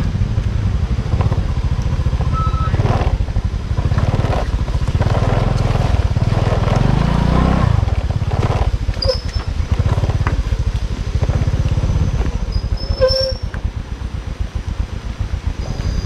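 Motor scooter engine running under load through mud, revving up in the middle and easing off near the end, with two short high squeaks in the second half.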